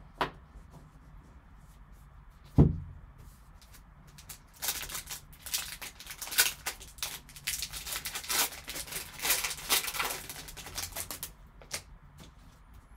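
A thump about two and a half seconds in, then a foil trading card pack wrapper being torn open and crinkled by hand, a dense crackling that lasts about seven seconds and stops near the end.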